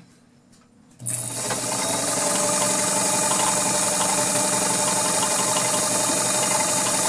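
Kenmore Model 33 all-metal sewing machine starting up about a second in and sewing steadily at speed on a zigzag stitch, its 1.2-amp motor running evenly.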